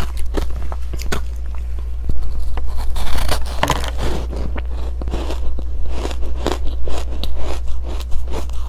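Close-miked biting and chewing of powdery freezer-frost ice dusted with matcha powder: a dense, uneven run of crunches and scrapes, loudest about three to four seconds in.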